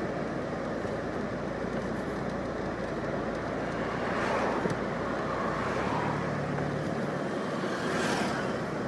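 Street traffic noise, with cars going by in two swells, one near the middle and one near the end.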